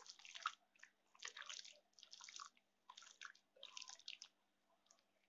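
Bare hand kneading chicken pieces in a thick yogurt and spice marinade, giving faint wet squelches about once a second that stop near the end.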